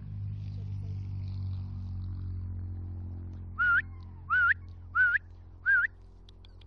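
Four short, loud whistled notes in even succession, each rising in pitch with a small wiggle, from a person whistling. A low steady rumble runs beneath.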